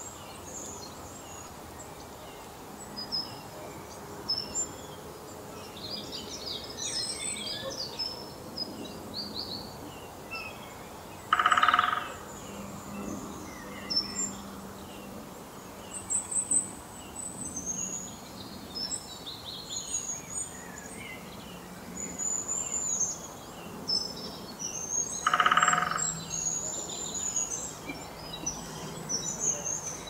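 Garden birdsong: many small birds chirping and trilling high, with two louder, short, pitched calls, about a third of the way in and again near the end.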